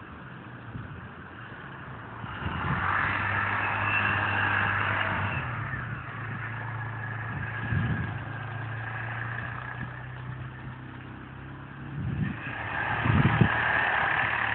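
A motor vehicle's engine running with a steady low hum, the sound swelling about two seconds in and again near the end, with a few short low thumps.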